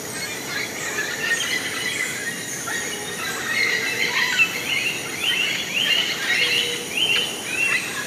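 Tropical rainforest birds in a dawn chorus, several species calling over one another with chirps and whistles. In the second half one bird repeats a rising, then dropping call about five times, roughly twice a second.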